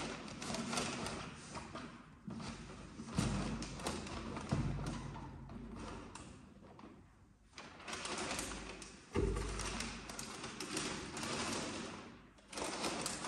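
Cardboard boxes and tissue paper being handled: rustling and scraping, with a few dull thumps as the shoebox and its outer box are knocked and set down, the loudest about three, four and a half, and nine seconds in.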